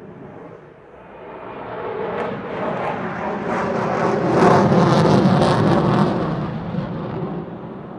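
Sukhoi Su-35 fighter's twin turbofan jet engines in a flypast: a rushing roar swells from about a second in, peaks past the halfway point with a crackling edge, and fades away near the end.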